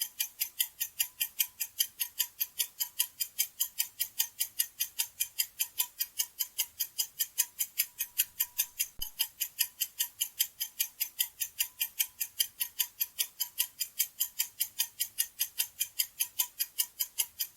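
A clock-tick sound effect ticking rapidly and evenly at about five ticks a second: a countdown timer giving the listener time to think of the answer.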